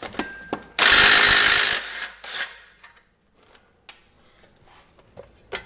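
A wrench loosening an 18 mm brake caliper bolt on a Jeep Grand Cherokee's rear axle: a loud burst lasting about a second, about a second in, then scattered clicks and light metal knocks.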